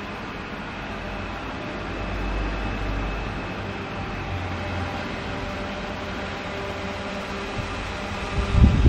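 Small electric desk fan running steadily: an even whir of motor and blades with air rushing past, under a low rumble, with a brief louder rumble near the end.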